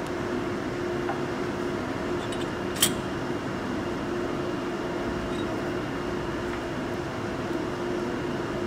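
Steady mechanical hum of workshop background noise with a constant low tone. About three seconds in there is a single sharp metallic click from the chuck key on the four-jaw lathe chuck as a jaw is adjusted.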